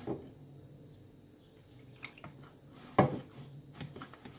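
A fork stirring a wet flour-and-water batter in a plastic bowl, with faint wet scraping and two sharper knocks: one right at the start and a louder one about three seconds in.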